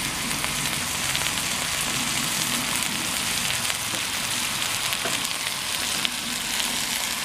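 A marinated mutton leg sizzling as it fries on a hot flat dosa griddle: a steady hiss with many small crackles.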